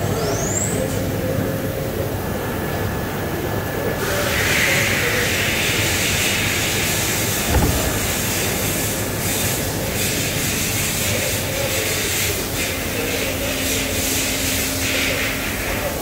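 Mazak Nexus 4000-III horizontal machining center running with a steady mechanical hum. There is a short rising whine near the start. From about four seconds in a steady hiss sets in with scattered ticks, and there is a single thump about halfway through.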